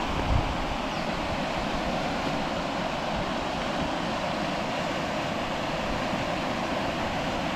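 Fast-flowing river rushing steadily over rapids: an even, unbroken wash of water noise.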